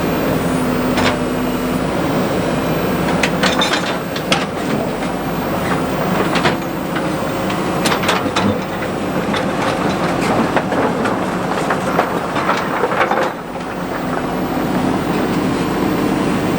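JCB 3DX backhoe loader's diesel engine running steadily, with scattered metal clanks and knocks as it works; the sound eases a little about thirteen seconds in.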